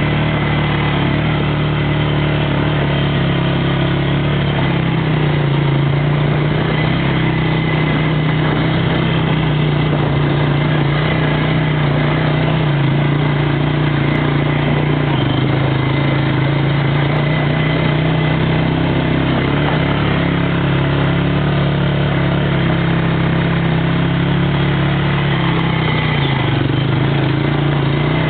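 ATV engine running steadily while the quad is ridden along, its note rising and falling a little with the throttle.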